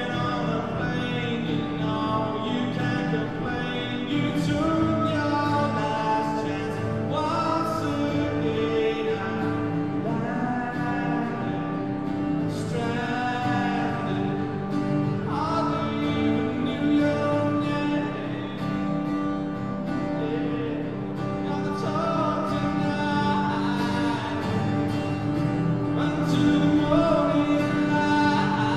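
Live solo acoustic song: a strummed acoustic guitar with a man singing over it in phrases.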